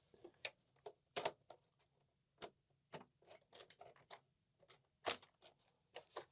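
Faint, irregular clicks and taps of a screwdriver and screws being worked into the plastic case of an Amiga 500.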